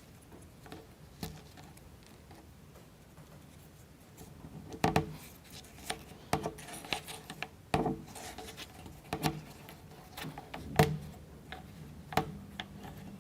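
Plywood model-kit parts and toothpicks being handled and fitted together on a table: irregular light clicks and taps that begin about four seconds in, with a few sharper knocks.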